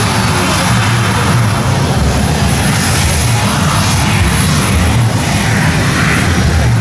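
Boeing 737 airliner's jet engines running loud as it rolls along the runway: a steady deep rumble with a hiss over it.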